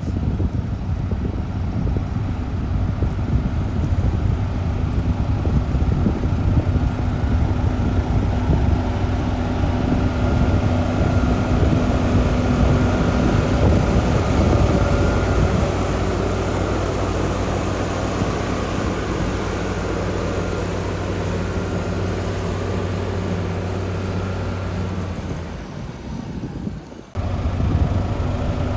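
Heavy diesel construction machinery running steadily, a low engine drone, at a road-building site where dump trucks unload gravel and a bulldozer spreads it. The engine sound shifts pitch about halfway through and fades near the end before cutting back in abruptly.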